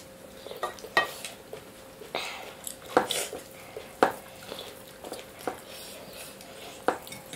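Eating sounds: fingers mixing biryani rice on steel plates and chewing, with short clicks and rustles about once a second.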